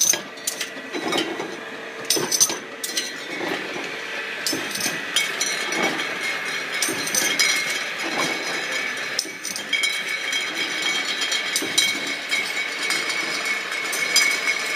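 Automatic beer rinser-filler-crowner running: a steady mechanical whine under frequent sharp clicks, knocks and the clink of glass bottles as they are carried through the machine and crowned.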